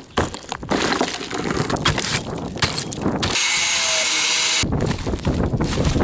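Irregular knocks, cracks and crunching as a miniature concrete-and-brick model wall and its rubble are broken apart. About three and a half seconds in, an angle grinder cuts for a little over a second with a steady high whine and hiss, then the crunching of rubble resumes.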